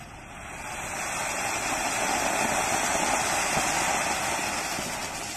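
Matka anar, a pot-shaped Diwali fountain firework, spraying sparks with a steady rushing hiss that builds over the first couple of seconds and begins to fade near the end.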